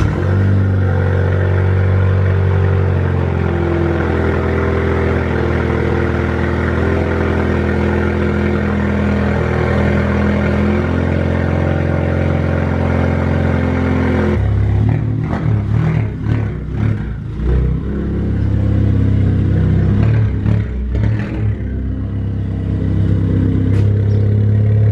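Ford Fiesta ST's 1.6-litre turbocharged four-cylinder engine idling steadily just after being started. About fourteen seconds in, the sound changes abruptly to uneven engine running with short revs and a few knocks as the car moves, then settles into a steady low drone near the end.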